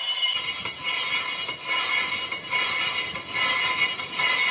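Cast iron truck brake drum being turned on a lathe, the cutting tool machining its inner braking surface: a high-pitched metallic squeal ringing at several pitches over the machine's low rumble, swelling and fading about once a second.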